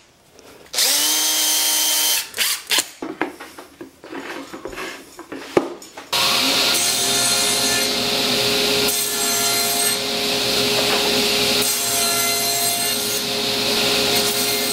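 Power tool cutting wood: a short motor run with rising pitch about a second in, some knocks, then from about six seconds in a steady, continuous cut. This is likely the small dado being cut into the jig's plywood base.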